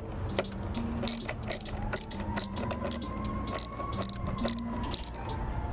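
Small metal clicks and rattles of a hand screwdriver and tool bits working on the engine's intake hose clamps, over background music with a repeating two-note bass line.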